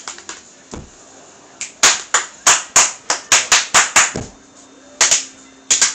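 Hands clapping and slapping out a quick beat, about three to four sharp hits a second, beginning near two seconds in. The hits pause briefly and come back near the end.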